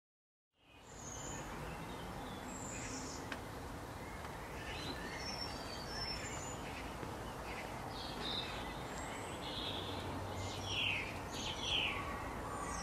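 Outdoor ambience of birds chirping: scattered short, high chirps of several different pitches over a steady background hiss, fading in about half a second in, with a few louder falling chirps near the end.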